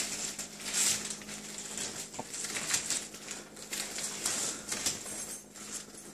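Rustling and tugging of a quilted bedspread used as gift wrapping, pulled and bunched by hand in short uneven bursts, strongest near the start.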